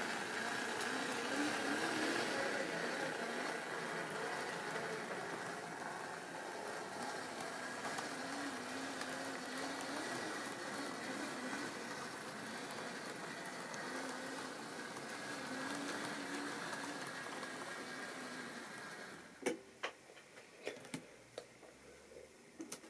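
Model railway locomotive and coaches running on the track: a steady whirring of the small electric motor and rattle of wheels on rail. It drops away abruptly about three-quarters of the way through, and a few sharp clicks follow near the end.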